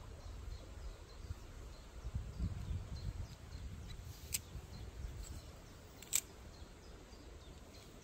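A spinning rod and reel being handled and worked: a low rumble of movement in the middle and two sharp clicks, a little under two seconds apart. Faint, evenly spaced high chirps sound in the background.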